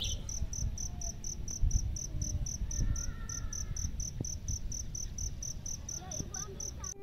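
Insect chirping in a steady, even train of short high-pitched pulses, about four to five a second, over a low rumble.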